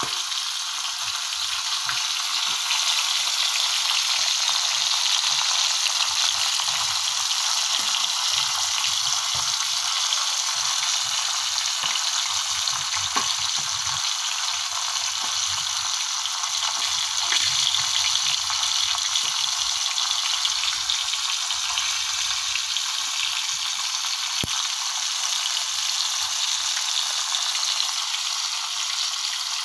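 Whole round scad (galunggong) frying in hot oil in a pan: a steady sizzle with an occasional sharp pop.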